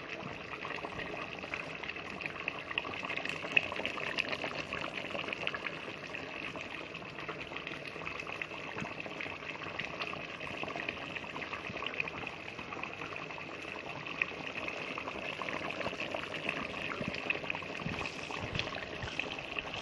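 Soup bubbling steadily in a cooking pot on the boil, a continuous seething with many small pops.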